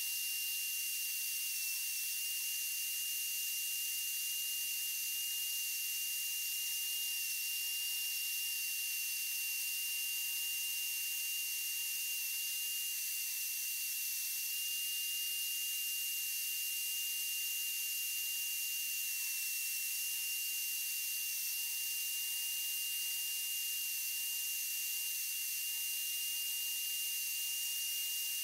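Benchtop bandsaw running and cutting through a thin wooden template board: a steady high-pitched whine over a hiss.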